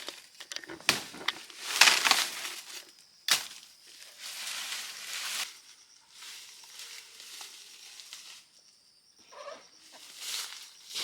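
Poultry calling, mixed with irregular bursts of rustling and crunching.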